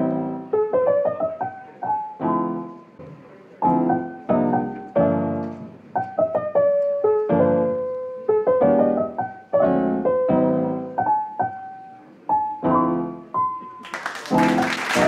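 Soft background piano music, with separate struck chords and melody notes decaying between strikes. About a second before the end a burst of hiss-like noise comes in over it.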